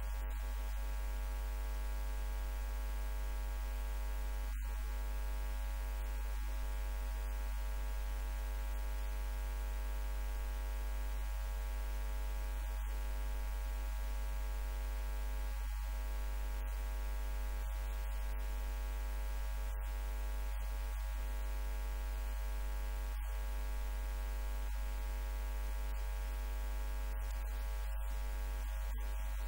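Steady electrical mains hum: a low buzz with a stack of evenly spaced higher tones, unchanging.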